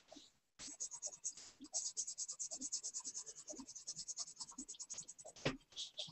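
Pencil shading on paper: quick, regular back-and-forth scratching strokes, several a second, ending with one louder stroke near the end.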